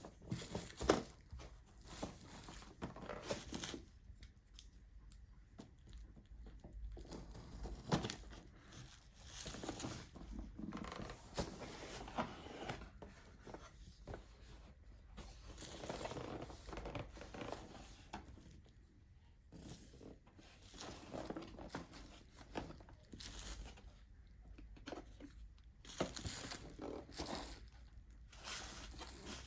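Drone packaging being opened and handled by hand: irregular rustling, crinkling and tearing, with a few sharp clicks and knocks.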